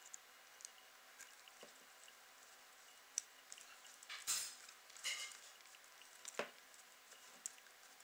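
Hand screwdriver turning a screw into plastic waste pipe: faint scattered clicks and short scraping creaks, the loudest a brief scrape about four seconds in.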